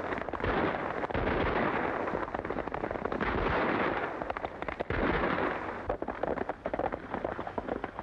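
Horses galloping hard over dirt amid a rapid, ragged volley of gunshots. The shooting thins out after about six seconds, leaving scattered hoofbeats.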